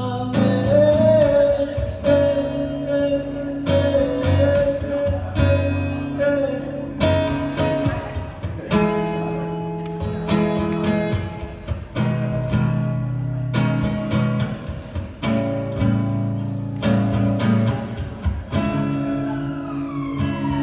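A man singing to his own strummed acoustic guitar, with a strum about once a second under long, wavering sung notes.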